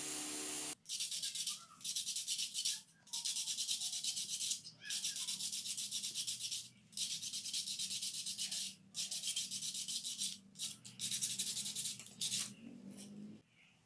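Sandpaper rubbing by hand over a plastic shower head in repeated strokes with short pauses, a dry, hissy scratching. In the first second a spinning bench buffing wheel hums, then cuts off abruptly.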